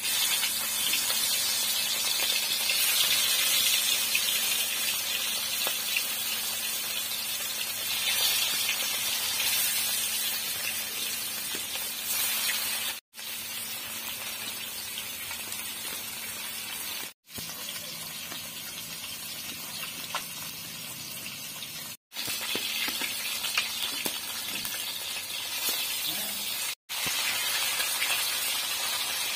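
Turmeric-coated fish pieces sizzling as they fry in hot oil in an iron kadhai. The sizzle is loudest in the first several seconds and steadier and quieter later, broken by four brief silences.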